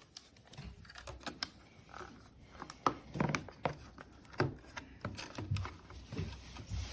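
Handling noises: a run of irregular clicks and knocks with dull low thuds, as of a small object being handled and set down.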